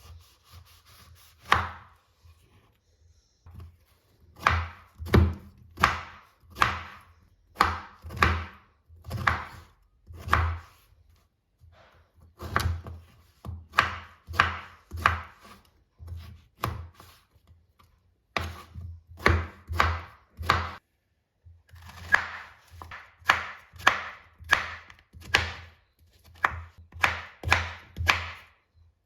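Kitchen knife chopping food on a cutting board: a steady run of sharp strokes about two a second, pausing briefly a few times between runs.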